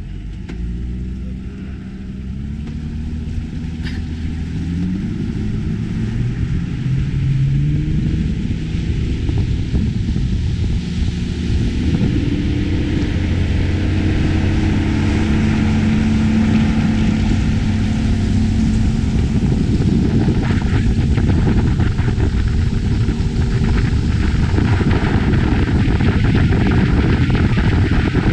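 Motorboat engine revving up as the boat gets under way, its pitch rising over the first several seconds, then running steadily at speed. Water from the wake rushes along the hull.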